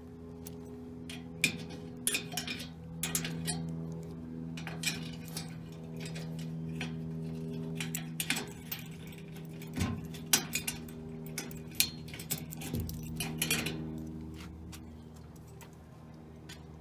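Scattered small clicks and taps, irregular and a few loud, over a steady low hum.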